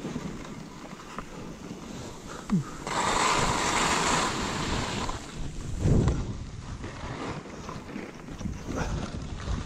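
Skis running through deep powder snow with wind noise on the camera microphone. A louder hiss of snow spray lasts about two seconds from around three seconds in, and a low thump comes about six seconds in.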